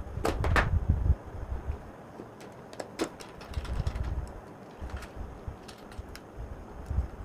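Handling noise from hand-wiring a plastic switch-and-socket board: scattered clicks and taps of wire and screwdriver against the board and its brass terminals, with irregular low bumps as the board is moved.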